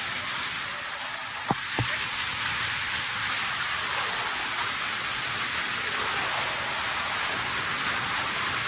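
Waterfall rushing steadily, running unusually full. Two short knocks come about a second and a half in.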